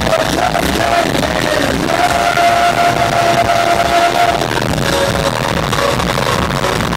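Loud live concert music over a venue PA, heard from within the audience, with a note held for a couple of seconds from about two seconds in.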